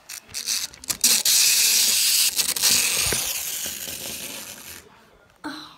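A few clicks, then a loud rushing hiss that starts about a second in and slowly fades away over about four seconds.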